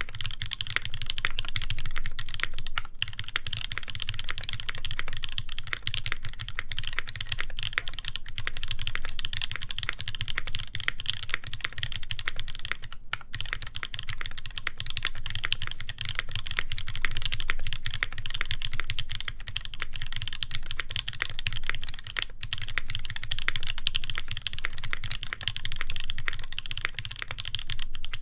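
Continuous fast typing on an Iron180 mechanical keyboard with lubed Moss switches, a full brass plate and GMK keycaps: a dense, unbroken stream of keystrokes with no pauses.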